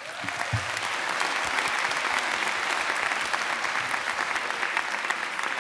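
Audience applauding: dense clapping from a large crowd that swells within the first second and holds steady, starting to thin out near the end.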